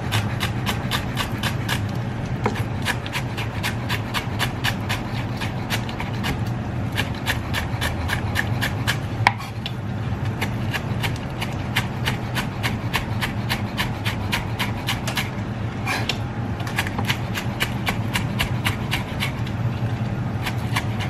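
Chef's knife chopping green onions on a wooden cutting board: quick, even knife strikes about four a second, with a short pause about nine seconds in and another near fifteen seconds.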